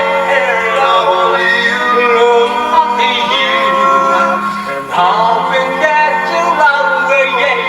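A cappella doo-wop vocal group singing in harmony, several voices at once with some holding long notes under the moving melody. There is a brief break in the singing about five seconds in.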